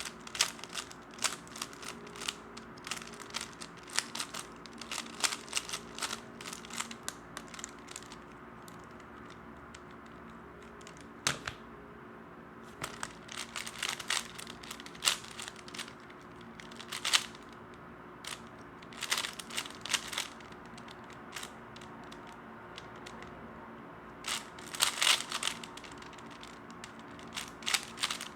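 A 3x3 speedcube being turned quickly by hand, its plastic layers clicking in rapid flurries broken by short pauses.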